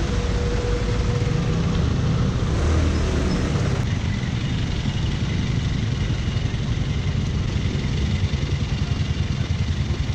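Yamaha Mio Sporty scooter's small single-cylinder engine running slowly in stop-and-go city traffic, with the low rumble of surrounding motorcycles and cars. The sound turns to a regular pulsing idle near the end as the scooter stops behind a car.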